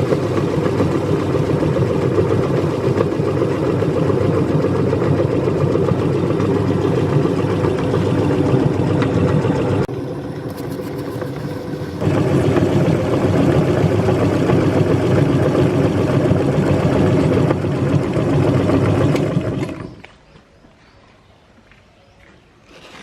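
Meat grinder running and grinding: a loud, steady churning noise that dips briefly about halfway through, then stops near the end.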